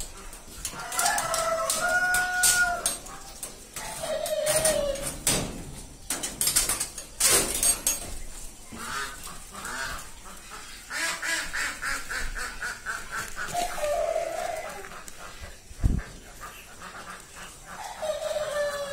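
Caged poultry calling several times in short pitched calls, over scattered clicks and rattles.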